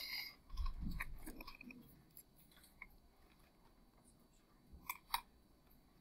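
A pen being handled over graph paper on a desk: a sharp click, a second or so of rustling and bumping as the hand moves in, a few small ticks, then two sharp clicks close together about five seconds in.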